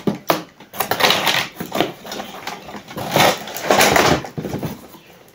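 Cardboard packaging rustling and scraping as a box is handled and pulled open, in several bursts, with a few sharp clicks near the start.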